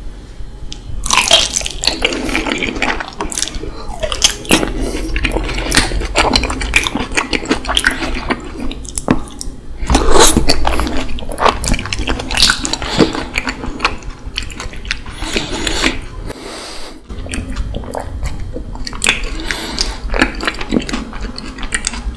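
Close-miked chewing of a mouthful of raw honeycomb, wax comb and honey, with many quick, irregular wet clicks. The chewing starts about a second in.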